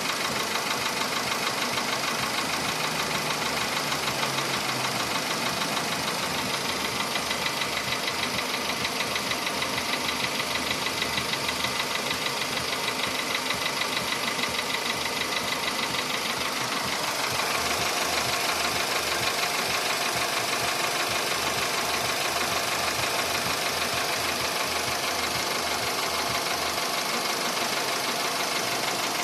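Volkswagen Polo Sedan engine running with a fast, evenly repeating knock. The sound turns slightly louder and brighter a little past halfway.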